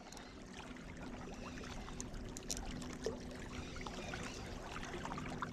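Faint lakeside ambience: water trickling and lapping, with a faint steady low hum and a few light ticks near the middle.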